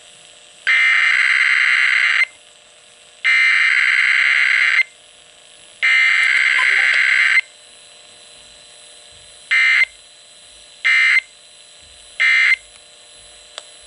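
Emergency Alert System SAME data tones over the radio for a weekly test: three identical buzzy digital header bursts of about a second and a half each, then three short end-of-message bursts.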